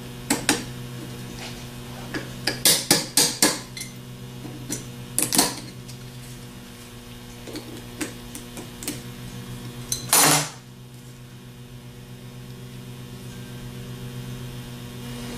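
Steel channel-lock pliers clicking and scraping against a Delco 37MT starter's armature shaft as its snap ring is worked off: scattered sharp metallic clicks, a quick cluster about three seconds in, and a louder, longer clatter about ten seconds in. A steady electrical hum runs underneath.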